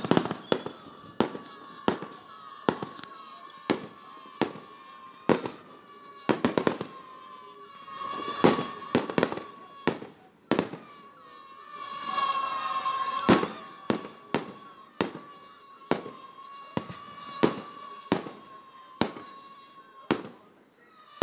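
Fireworks going off in a long, irregular run of sharp bangs, about one or two a second and sometimes several in quick succession, with a crackling burst partway through. Under them runs a steady high-pitched tone.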